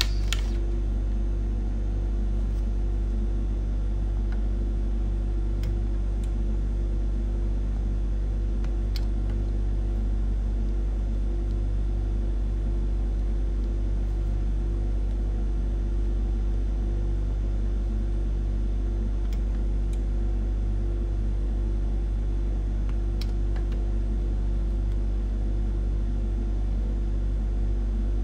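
Steady low hum, unchanging throughout, with a few faint clicks now and then.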